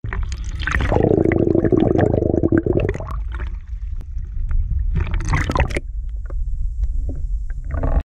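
Wind rumbling on the microphone over shallow water, with sloshing, gurgling water noise that is loudest in the first three seconds and again about five seconds in.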